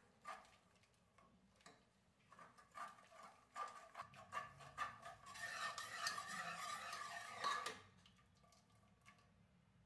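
A steel ladle stirring and mashing cooked dal in a pressure cooker, metal scraping and clicking against the pot. The strokes start sparse, grow denser and louder in the middle, and stop about eight seconds in.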